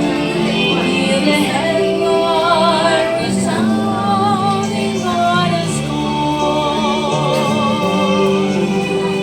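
Gospel song: a singing voice holds long notes with wide vibrato over sustained chords that change every second or so. No words are picked out.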